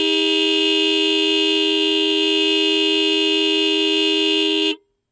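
A vehicle horn giving one long steady blast of two pitches at once, stopping abruptly near the end.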